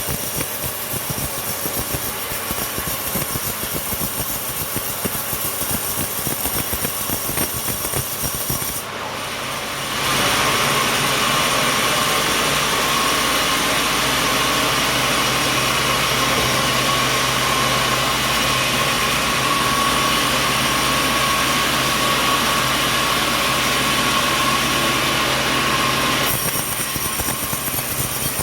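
Sawmill machinery running steadily. About ten seconds in it switches abruptly to a louder, steady whine with one held tone, which drops back to the earlier machine noise a couple of seconds before the end.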